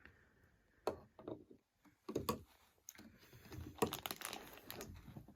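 Light clicks, taps and rustles of a small plastic toy and its container being handled, irregular and busiest in the second half.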